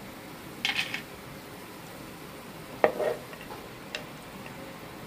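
Wooden spatula scraping and scooping fried dry fruits (almonds, cashews, raisins) across a non-stick frying pan: a rustling scrape about a second in, a sharp knock with a brief rattle near the middle, and a lighter click later.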